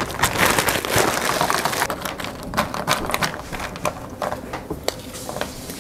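Plastic bag crinkling and sliced strawberries clattering onto stainless-steel trays, then being pushed around and spread by hand, with many small irregular clicks and rustles.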